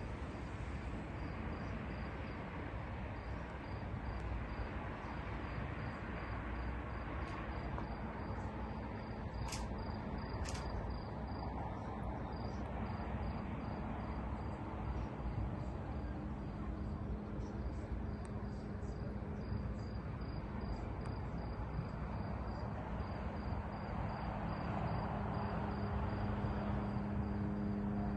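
Crickets trilling, a steady high-pitched chirp that breaks into regular pulses in the second half, over open-air background noise. A low steady hum rises from about halfway and is loudest near the end.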